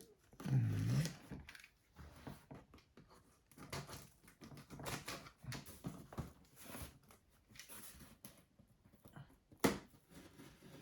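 A package being opened by hand: irregular scraping, tearing and rustling of cardboard and paper, with a sharper knock near the end.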